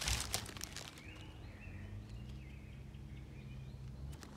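Brief rustling and snapping of undergrowth at the start, then small birds chirping in the woodland over a low steady hum.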